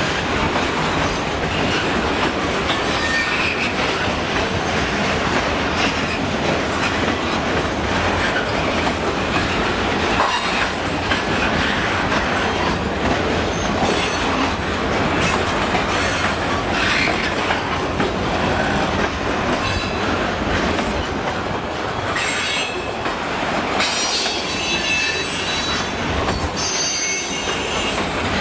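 Freight train of centerbeam flatcars rolling steadily past, with wheels rumbling and clattering over the rail joints. Wheels squeal at times, most strongly near the end.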